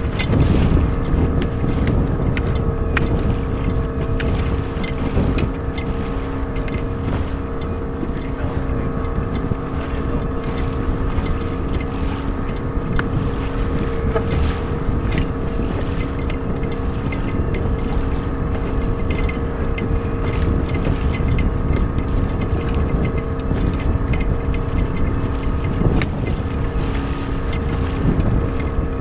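Old 8 hp Yamaha two-stroke outboard motor running steadily at trolling speed, with a low, even drone, and wind buffeting the microphone.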